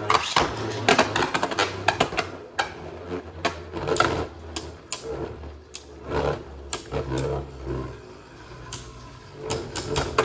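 Two Beyblade Burst spinning tops battling in a plastic stadium: a steady whir of spinning, broken by many sharp, irregular clacks as the tops strike each other and the stadium wall.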